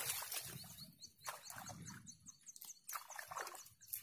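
A bird chirping a quick series of short, high notes, several a second, with a few soft knocks and rustles of handling close by.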